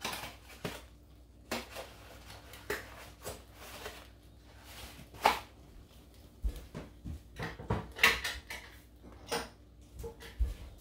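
Scattered clicks, knocks and light clatters of kitchen items being handled, with a couple of dull thumps in the second half.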